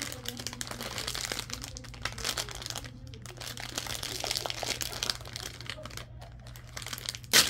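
Plastic packaging crinkling and crackling as small hands squeeze and pick at a sealed plastic toy bag, with one short, loud crackle near the end.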